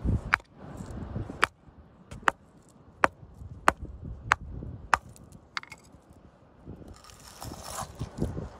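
Steel-headed hammer striking a beach rock along an existing crack to split it open for fossils: about nine sharp knocks, roughly one every two-thirds of a second, in the first six seconds.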